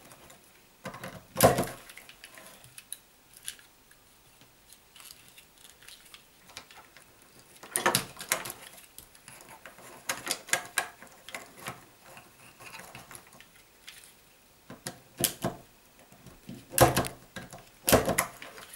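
Telephone cable wires being pressed into the terminals of a phone junction box with a plastic punch-down tool: scattered sharp clicks and small plastic handling noises, the loudest about a second and a half in and in a cluster near the end.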